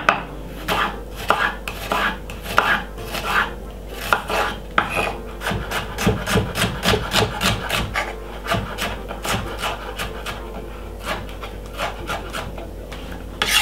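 Chef's knife dicing a white onion on a wooden cutting board: a run of knife strikes on the wood, uneven at first, then quick and steady, about four a second, through the middle.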